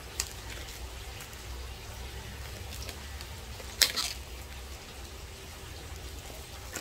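Clear plastic film being torn and pulled off a cardboard box: a few faint crinkles, then one sharp crackle about four seconds in, over a low steady background rumble.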